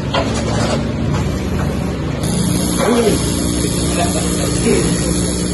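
A steady hiss of escaping gas starts about two seconds in and keeps on over a low, even mechanical hum.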